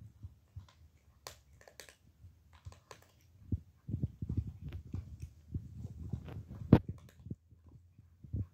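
A cat chewing food from a bowl: irregular clicking and smacking chews, sparse at first, then coming thick and fast from about halfway, with one sharper click near the end.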